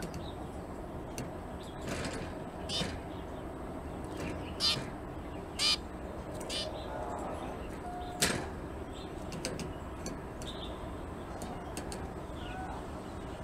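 Zebra finches at a wicker nest with newly hatched chicks: scattered short chirps and scratchy rustles, the loudest a little before halfway and just past it. One short steady beep call comes about eight seconds in.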